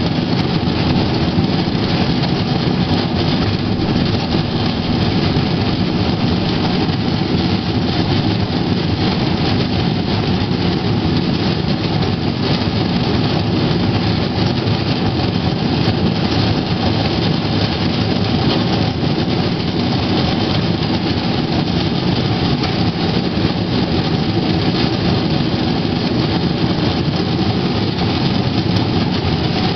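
Steel wheels of a Play-Team pedal rail bike rolling along old rails, a steady loud rumble.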